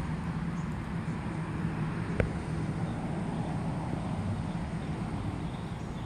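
Steady outdoor background rumble with a low hum, and one sharp click about two seconds in.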